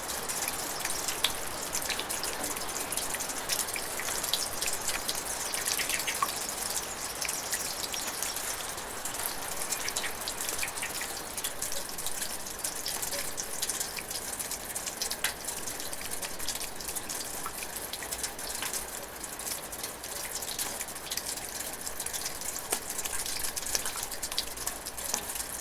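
Water splashing and dripping: a steady hiss of running or falling water with many fine, quick drop ticks.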